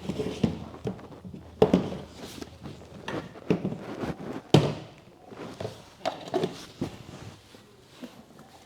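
A string of irregular thumps and knocks, about a dozen, the loudest two near the second and near the middle.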